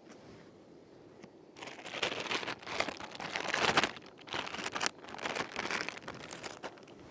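A plastic bag of baby spinach and a freeze-dried meal pouch crinkling and rustling as the spinach is tipped and stuffed into the pouch. The crinkling comes in several bursts, starting about a second and a half in and stopping shortly before the end.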